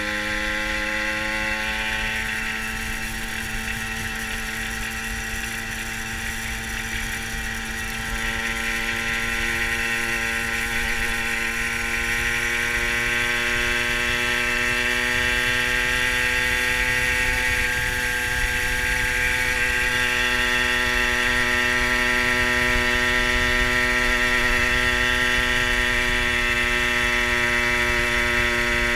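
Fantic TI sports moped's small two-stroke single running under way. Its note shifts about two seconds in, then slowly climbs and grows louder as the ride goes on, over low wind rumble.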